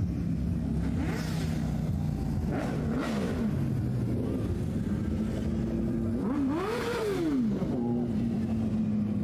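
Car engine running, revved up and let back down twice: a short rev about three seconds in and a longer one later, each a pitch that rises and falls.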